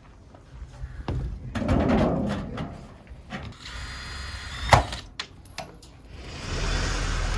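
Knocks and clatter of renovation work, with a sharp impact near the middle and a few quicker knocks after it, then a steady rushing noise near the end.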